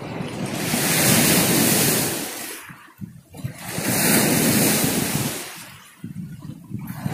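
Sea waves washing in and drawing back against the shore, two loud surges of rushing water about three seconds apart.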